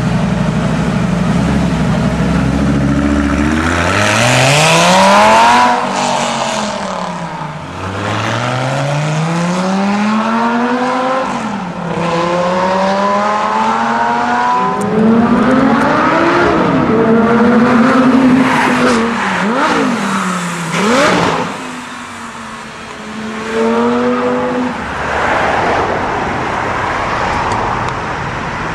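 Lamborghini Gallardo Spyder's V10 engine and exhaust idling at first, then revved up and back down several times, with a few short, quick blips about two-thirds of the way through.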